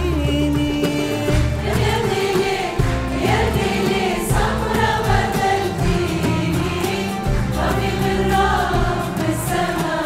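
A women's choir and a female soloist singing an Arabic song, accompanied by a traditional Arabic ensemble of violins, qanun, oud and frame drums.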